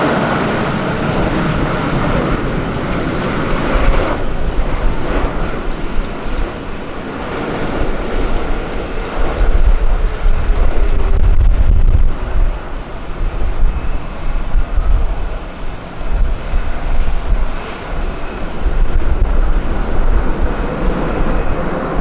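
Jet aircraft engines at an airport, a continuous rushing roar with a deep rumble that swells strongest about halfway through.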